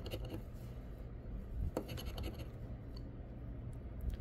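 A metal scratcher coin scraping the coating off a scratch-off lottery ticket, in short rough strokes with an occasional sharp tick.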